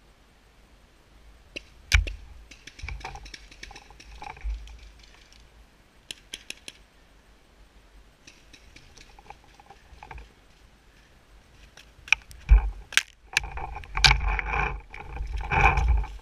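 Sharp pops of paintball markers firing: single shots, a quick string of four about six seconds in, and several more near the end, over rustling and knocking of the marker and barrel-mounted camera being handled.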